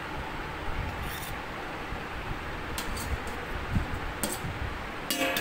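A ladle stirring thick dosa batter in a steel vessel: a few light clicks and scrapes over a steady background hiss.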